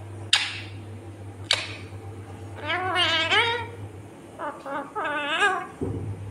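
Ringneck parrot calling: two short sharp screeches in the first two seconds, then two longer warbling, wavering calls around three and five seconds in.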